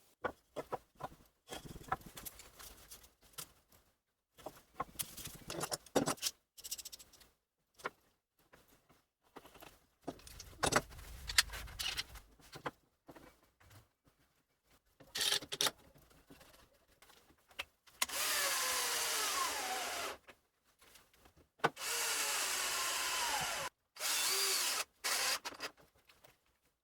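Scattered knocks and clicks of wooden parts being handled, then a power drill driving screws into wood in three runs of about two seconds each, its motor pitch sagging as each screw goes in.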